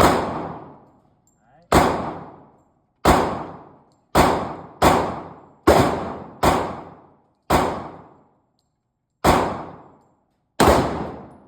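Handgun fired ten times at an uneven pace, about a second between shots, each crack ringing out with a long echo before the next.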